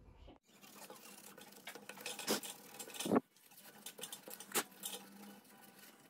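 Light handling noise from hands working on the aluminium scooter deck: scattered small clicks and taps, a few of them sharper.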